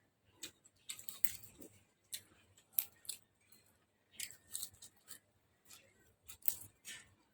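Someone eating noodle soup: irregular short clicks and brief scrapes of utensils and mouth sounds, about two a second, with no talk.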